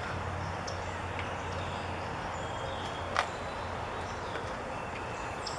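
Outdoor ambience: scattered short bird chirps over a steady low hum, with a single sharp click a little past halfway.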